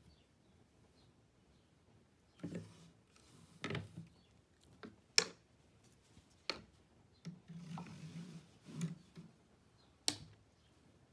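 Handling noise at a wooden rigid heddle loom while weft yarn is drawn through the shed by hand: soft rustling of yarn with a few sharp, light clicks and taps of wooden parts, spread out with quiet gaps between, the loudest about five seconds in.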